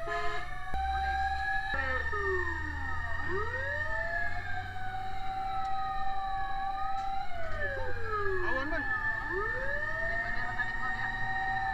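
Several fire truck sirens wailing at once, each rising and falling in pitch out of step with the others, over a steady low rumble.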